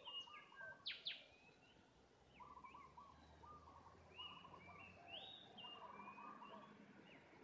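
Faint chorus of several small birds calling: whistled notes that rise and fall, and short trilled phrases repeated throughout, with two sharp notes about a second in as the loudest sounds.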